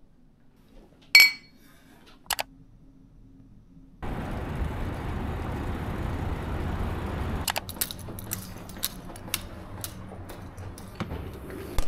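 A drinking glass clinks once with a short ring about a second in, followed by a smaller click. From about four seconds in comes the steady rushing noise of riding a bicycle, which gives way to a run of irregular sharp clicks and taps.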